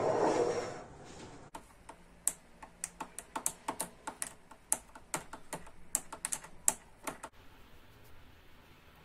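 A metal teaspoon clinking against the sides of a glass mug as whipped coffee is stirred into milk, a quick, irregular run of light clinks, about three a second, for around five seconds. A short soft whoosh comes before it at the start.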